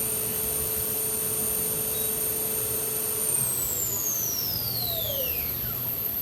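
TRAK VMC10 CNC vertical machining center's spindle whining steadily at its 8,000 RPM maximum, then spinning down a little over three seconds in, the whine falling smoothly in pitch as it slows. A steady high hiss runs underneath.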